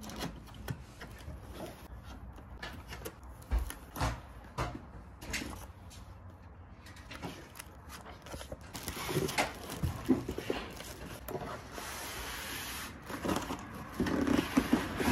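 Cardboard box being opened and handled, with scattered knocks and scrapes, then a longer rustle of paper and cardboard as the printed manual is pulled out. Near the end, louder handling as the styrofoam packing insert slides against the box.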